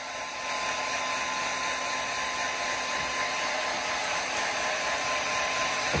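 Hand-held hair dryer blowing steadily: an even rush of air with a faint steady hum.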